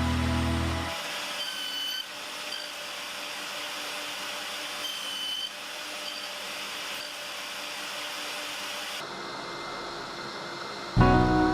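Woodworking power tool running: a steady whirring hiss in several short stretches cut together. Guitar music fades about a second in and starts again near the end.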